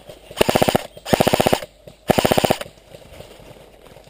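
Airsoft rifle firing on full auto: three short bursts of rapid shots in quick succession, each about half a second long.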